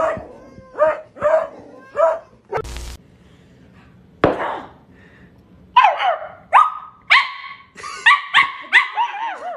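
Dogs barking: several short barks, then from about halfway through a quick run of higher-pitched, yelping barks about twice a second.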